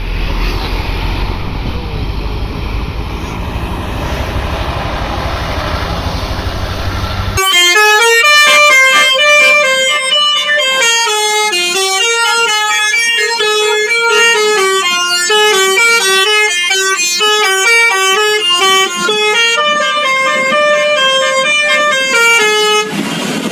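A bus's telolet basuri musical air horn playing a quick tune of short stepping notes, starting about seven seconds in and stopping just before the end. Before it, low vehicle rumble and road noise.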